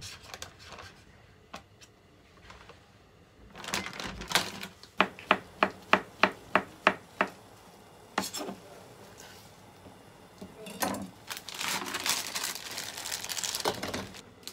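Kitchen knife chopping on a cutting board: about eight quick, even strokes, about three a second, a few seconds in. Near the end comes a longer rustling stretch.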